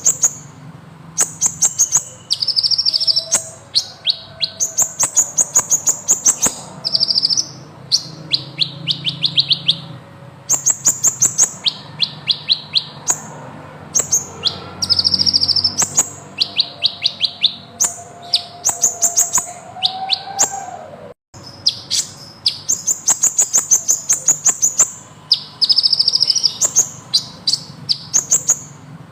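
Kolibri ninja sunbird singing. It gives repeated high, fast trilled phrases about a second long, separated by short pauses, in the long rolling song that bird keepers call 'gacor ngeroll'.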